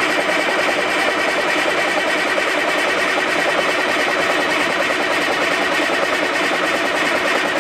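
The 5-ton 6x6 army truck's engine cranking on its starter in a fast, even rhythm without catching: the emergency stop cable is pulled out, so the engine gets no fuel and will not start.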